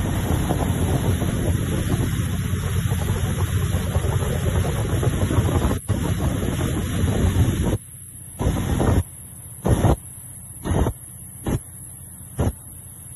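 Express passenger boat running fast on the river: a dense rushing rumble of engine, hull spray and wind on the microphone. About eight seconds in it drops away and comes back only in short gusts.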